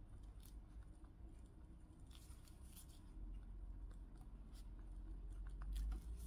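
Ballpoint pen writing on a paper card: faint, scratchy pen strokes and small taps, with a low rumble underneath that grows a little louder about halfway through.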